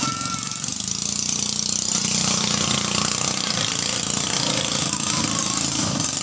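Small single-cylinder engine of a 6.5 hp ketinting longtail racing boat running, a steady rapid pulsing.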